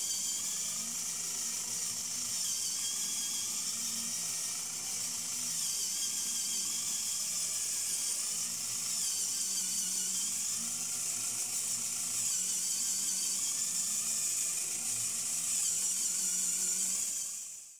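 Small electric gear motor of a 3D-printed walking robot running steadily and driving its leg linkage, with a whine that swells and eases in a cycle about every two seconds as the legs go round.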